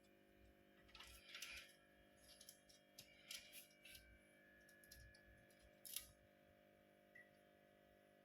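Near silence with a few faint, scattered clicks and scratches.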